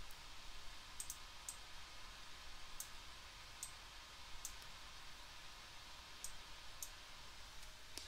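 Faint, scattered clicks of a computer mouse, about eight spread unevenly, over a low steady hiss.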